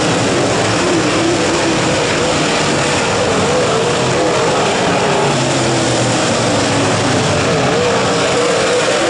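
A pack of dirt late model race cars, their V8 engines running hard on the track, making a loud, steady drone whose pitch wavers up and down as the cars circle.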